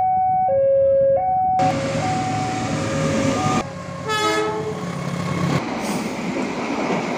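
Railway level-crossing alarm sounding a repeating two-note electronic chime, then the rumble of a passing KAI passenger train, with a short train horn blast about four seconds in.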